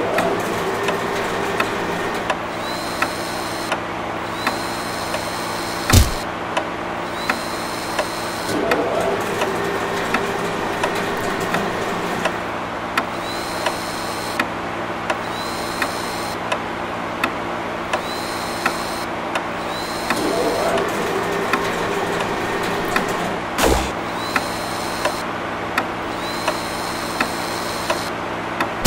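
Steady mechanical hum with a regular tick about once a second, two short rising whirs, and two sharp clicks that are the loudest sounds.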